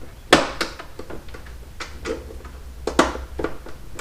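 Irregular metallic clinks and knocks of hand tools and parts being handled during reassembly. The sharpest comes about a third of a second in and another near three seconds, over a low steady hum.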